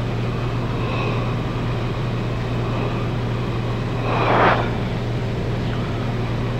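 Cessna 210 Centurion's six-cylinder piston engine and propeller droning steadily, heard inside the cabin in flight. A short burst of hiss about four seconds in.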